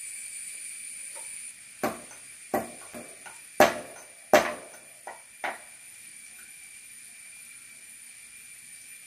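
A small mortar and pestle struck about seven times, sharp knocks with a short ring, the two in the middle the loudest, then it stops.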